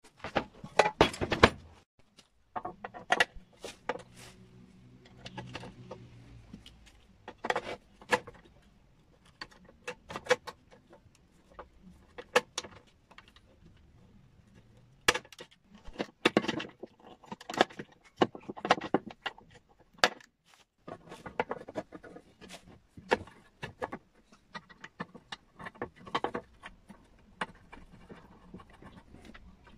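Intermittent metallic clicks, clinks and knocks as the height-adjuster lever, its slotted sector plate and pliers are worked against a Honda HRU196 lawn mower's deck, with a faint low hum a few seconds in.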